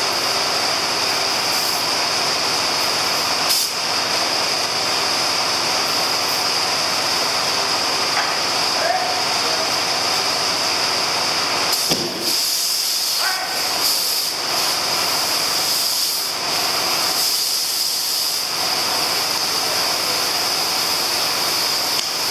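Compressed air hissing loudly and steadily while a truck tire is inflated on its rim, with air rushing past the unseated bead. About twelve seconds in there is a brief thump as a fire is flashed at the bead to seat it.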